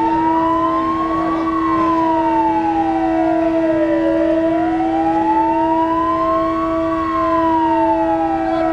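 A siren wailing slowly up and down: it rises for a couple of seconds, then falls, about five seconds to each cycle. It sounds over a steady low held tone.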